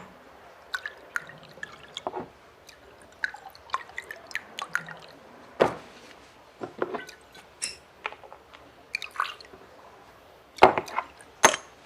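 Foley of small glass perfume bottles and corks being handled: scattered small clinks and taps, with sharper knocks about halfway through and twice near the end.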